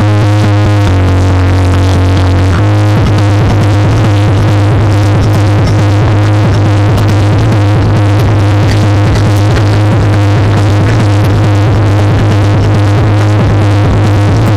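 A 2500-watt-class competition sound system (sound balap) playing electronic synth music at full volume for a loudness measurement, with a heavy, steady bass line that dominates.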